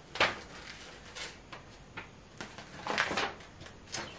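Paper instruction sheets rustling and crinkling as they are handled and turned over, in several short rustles, the loudest just after the start and a longer one around three seconds in.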